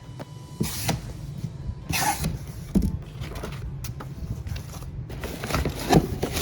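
Irregular scraping, rustling and knocks from hands-on work on a stripped car.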